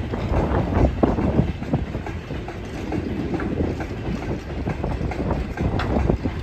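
A train running on the track, its wheels rumbling and clattering irregularly over the rails.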